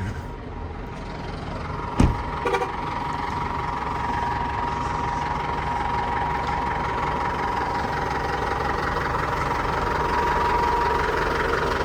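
A crane's engine idling steadily, with a steady whine above the rumble. A sharp knock comes about two seconds in, followed by two lighter clacks.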